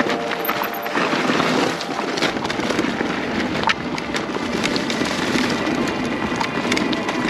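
Mountain bike rolling down a dirt and rocky forest trail: steady tyre noise over the ground, with frequent small clicks and rattles from stones and the bike.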